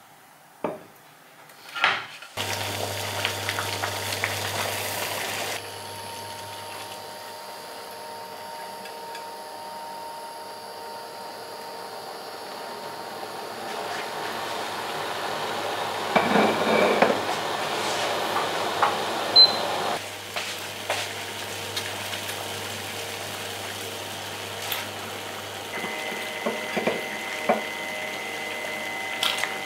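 Pots of water on a glass-top electric hob, heating for blanching bean sprouts and greens, with a steady low hum and a faint high whine, and stainless steel pans and a plate clinking. Two knocks come near the start, and a louder stretch of clatter and water noise falls about two-thirds of the way through.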